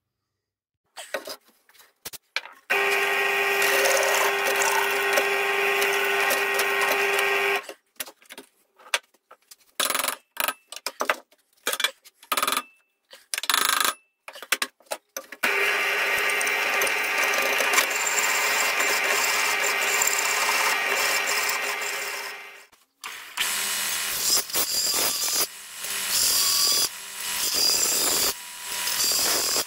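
Pillar drill turning a hole saw that cuts through a metal gasket plate, in steady stretches broken by abrupt stops and restarts. From about three-quarters of the way in, a bench belt sander grinds the edge of the small cut part, rising and falling as the part is pressed on.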